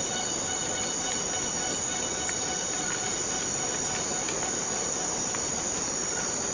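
Steady rain in a tropical rainforest with a chorus of insects holding several steady high tones over it, and a few faint ticks.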